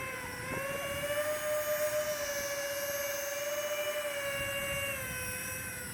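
Electric ducted fan jets of an RC Airbus A330 model running at low taxi throttle, a steady whine that drops a little in pitch about five seconds in as the throttle eases off.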